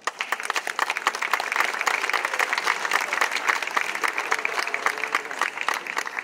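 A large crowd applauding. The applause starts suddenly and keeps up as a dense, steady clapping.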